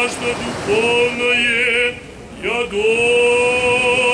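Voices singing an Orthodox liturgical chant in long held notes with vibrato, breaking off briefly about halfway through before the next phrase begins.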